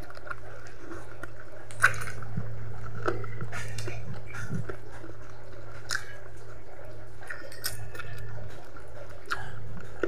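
Close-up eating sounds of spicy chicken feet being bitten, chewed and sucked off the bone by hand: irregular wet clicks, smacks and small crunches, the sharpest about two seconds in. A steady low hum runs underneath.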